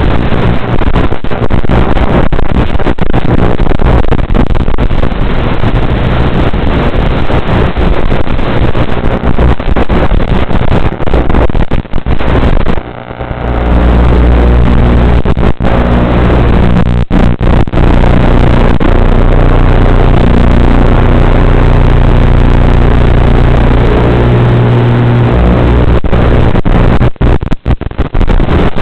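Loud static hiss on the audio channel of an analog FPV video link, broken by many brief dropouts. About 13 s in, after a short dip, a low steady hum joins the hiss.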